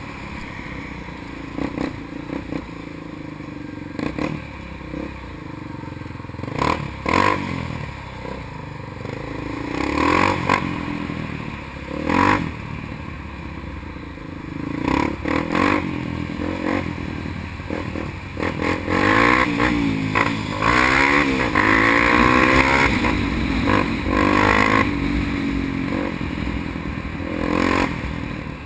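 Honda XR 250 Tornado single-cylinder trail-bike engine running through slow traffic, its revs rising and falling several times, most of all in the second half, over steady road and traffic noise.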